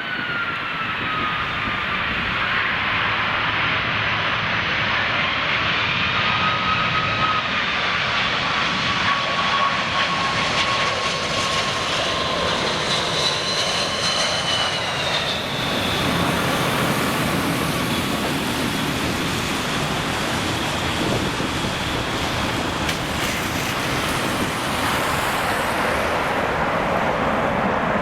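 A British Airways Boeing 747-400's four Rolls-Royce RB211 turbofans on approach and landing: a loud, steady jet roar with high whining tones that rise and fall. About halfway through the whine fades and a broader, deeper roar takes over.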